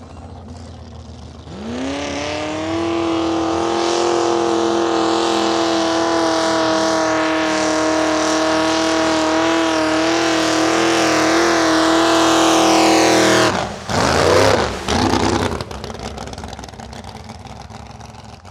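A vehicle engine revs up about a second and a half in and is held at high, steady revs for about twelve seconds, then drops off suddenly and is blipped two or three more times before settling back.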